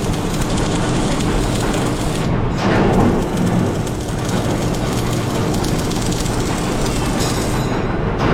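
Steady, loud mechanical running noise, like heavy machinery working, with a faint steady hum.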